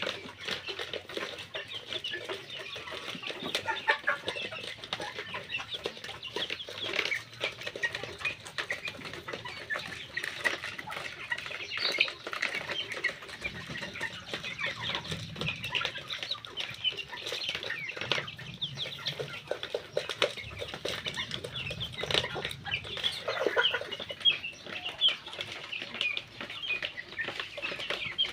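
A flock of young chickens cheeping and clucking without a break as they feed, with a quick run of short pecking taps.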